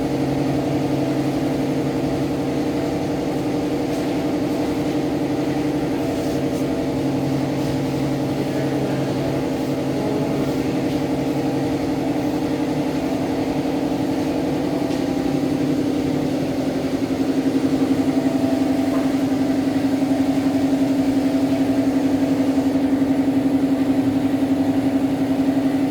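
A motor-driven machine running with a steady pitched hum, a little louder from about 17 seconds in.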